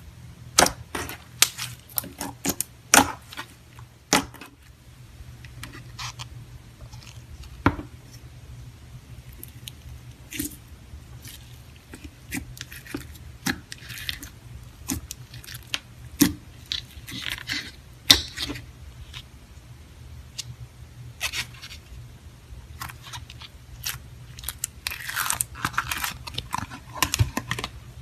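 Clear slime being squeezed and worked by hand: irregular sticky clicks and pops, with patches of denser crackling, the busiest near the end.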